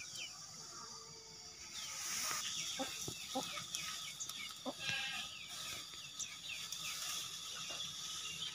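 Rural yard ambience: farm animals calling now and then, with scattered short bird-like chirps over a steady high-pitched hum.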